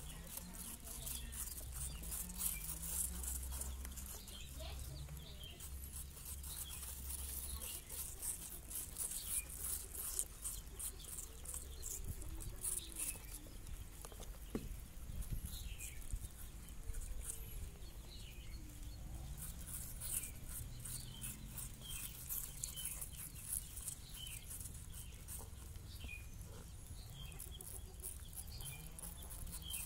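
Baby rabbits nibbling and chewing an apple: a fast, continuous patter of small crunching clicks. Faint wavering calls and short chirps sound in the background.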